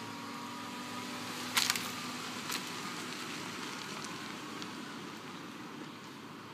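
SUV pulling away and driving off, its engine and tyre noise slowly fading. Two sharp clicks come about a second and a half and two and a half seconds in.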